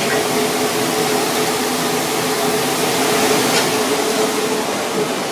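Steady fan-like whirring with a constant low hum beneath it.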